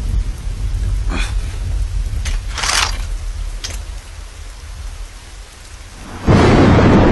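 Heavy rain with a low rumble of thunder, broken by a few short cracks, then a sudden loud crash about six seconds in.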